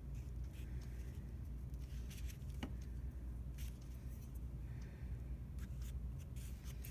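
Quiet room tone with a steady low hum, and a few faint light ticks and scrapes as a wooden stick swirls paint through shaving cream on a paper plate.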